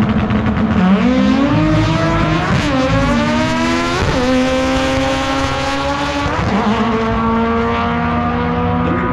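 Drag race car accelerating hard down the strip. The engine note climbs, drops sharply at each of about three gear shifts, and climbs again.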